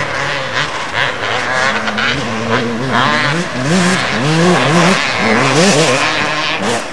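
Motocross bike engine running hard on the track. From about three seconds in, its pitch rises and falls again and again as the throttle is opened and closed.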